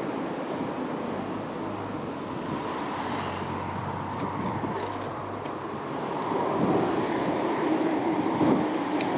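Steady street and traffic noise, a rushing sound that grows louder about six seconds in.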